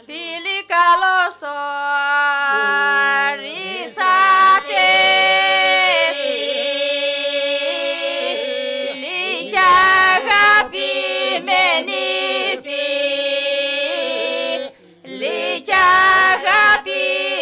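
Small group of women's and men's voices singing unaccompanied in the Epirote polyphonic style: long sung phrases over a steady held drone, broken by short pauses for breath.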